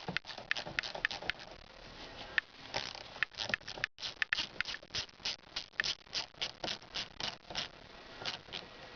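Ratchet and socket backing out the 8 mm screw that holds the airbag in a Saturn steering wheel: a long run of short sharp clicks, about two or three a second through the middle, stopping about a second before the end.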